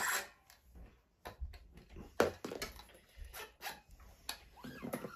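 Handling noise as a new steel electric guitar string is fed through the bridge: scattered clicks and light taps of metal and hands on the guitar, the sharpest about two seconds in, with a brief squeaky whine near the end.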